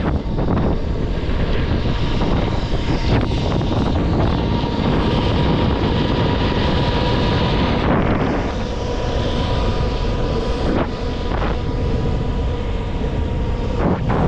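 Electric skateboard riding at steady speed: wind rushing over the microphone and wheels rolling on pavement, under a faint steady whine. A few sharp knocks come through during the ride.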